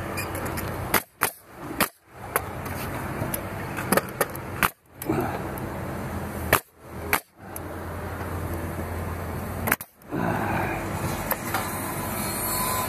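Steady hum of an engine or machinery running, with a few sharp snaps, and the sound cutting out abruptly several times.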